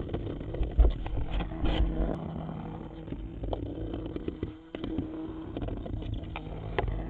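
Hexbug vibrating robot toy scuttling across the floor of a cardboard box: its tiny vibration motor gives a steady buzzing hum, with irregular ticks and taps as it bumps and skitters on the cardboard.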